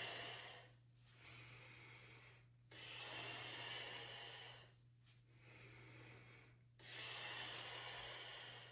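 A woman breathing hard in time with an exercise: three strong, hissing exhalations of about two seconds each, with softer inhalations between them, in a slow, even rhythm.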